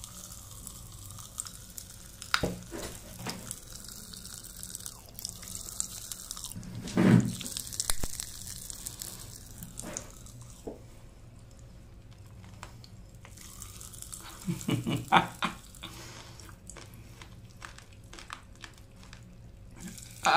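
Magic Pops popping candy crackling in a mouth, heard through an earphone microphone held at the lips: a run of tiny sharp pops over a faint fizz, thickest in the second half. A few louder mouth noises stand out about seven and fifteen seconds in.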